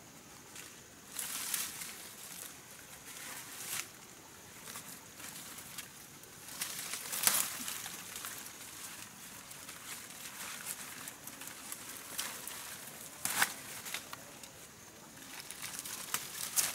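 Leaves rustling and crackling, with sharp snaps of plant stems, as wild greens are pulled and picked by hand in thick undergrowth. The rustles come irregularly, with the loudest snaps about seven and thirteen seconds in.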